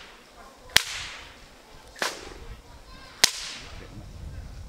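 Three loud, sharp cracks, evenly spaced about a second and a quarter apart, each trailing off with a short echo.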